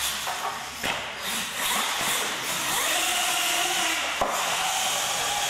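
Electric motors of radio-controlled monster trucks whining over a steady background noise, with a sharp knock about a second in and another about four seconds in.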